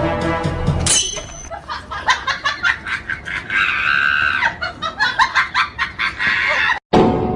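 Comic background sound-effect track: music for about the first second, then a run of quick laughter-like bursts lasting several seconds. It breaks off briefly near the end before the music picks up again.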